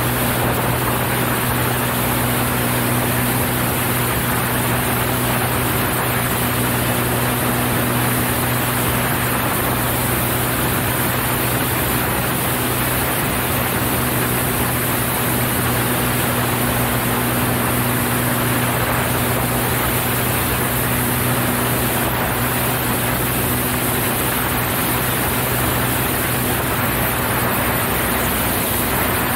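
Cessna 172's piston engine and propeller running steadily in flight, a constant low drone under an even rush of airflow.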